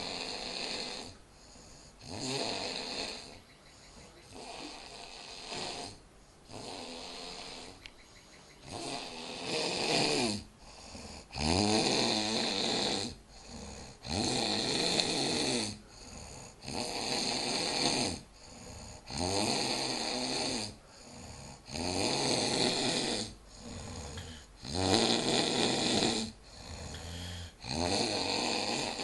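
A person snoring in deep sleep, one rasping snore roughly every two and a half seconds. The snores grow louder about ten seconds in.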